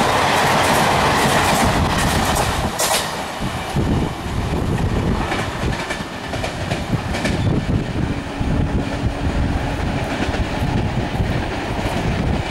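Coaches of an express passenger train rushing past at over 100 km/h, the wheels clattering over the rail joints. Loudest for the first couple of seconds, with a sharp clank about three seconds in, then a little quieter, with uneven clatter.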